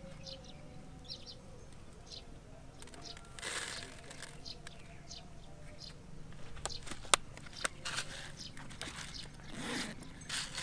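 Scattered short, high chirps with a few sharp clicks and brief rustles between them.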